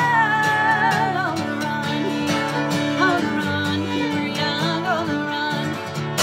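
Bluegrass music played on fiddle and strummed acoustic guitar, an instrumental stretch of the song. A long held note with vibrato ends about a second in, and the fiddle carries the melody over a steady guitar strum.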